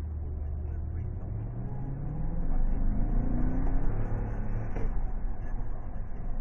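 Toyota Tundra pickup engine heard from inside the cab as the truck pulls away from a stop and accelerates, its pitch rising steadily over two to three seconds, with road noise under it.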